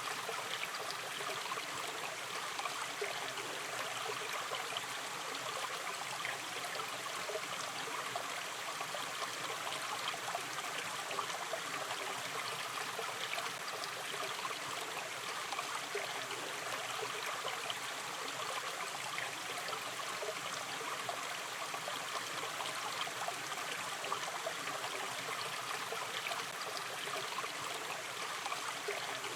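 Gently running river stream: steady rushing and trickling water with small splashes and gurgles.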